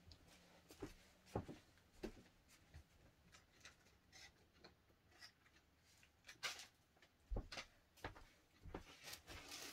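Faint, scattered handling sounds: light taps, knocks and rustles of objects being picked up and moved about, with a few sharper knocks in the second half.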